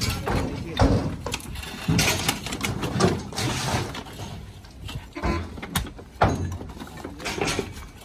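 Irregular knocks and scrapes of a precast concrete lintel beam being handled, pushed up and slid against brick and scaffold planks.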